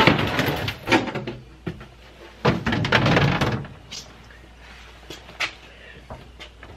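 Plastic tote holding bagged bacon being slid onto a refrigerator shelf, with scraping and rustling of plastic and a few light knocks as the totes and shelves are handled.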